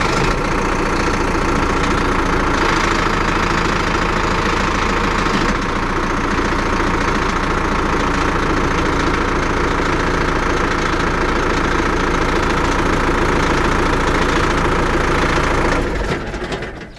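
Zetor Forterra 150 HD tractor's four-cylinder diesel engine idling steadily. The sound dies away near the end.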